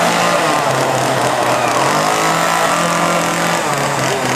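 Gasoline chainsaw running steadily at idle just after being fired up, its pitch dipping slightly near the end.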